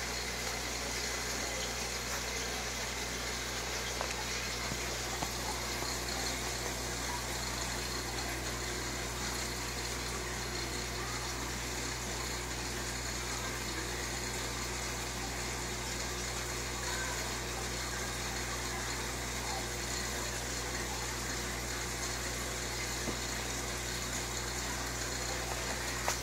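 Aquarium filter and water circulation running steadily: a continuous watery rush with a low hum underneath.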